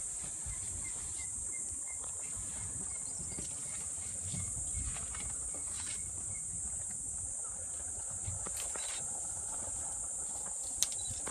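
Steady high-pitched drone of insects, with scattered snaps and rustles of branches as an African elephant bull works his trunk through a thorn tree. The loudest crack comes near the end.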